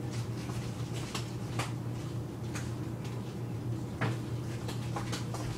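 Room tone: a steady low hum with a few faint clicks and knocks scattered through it.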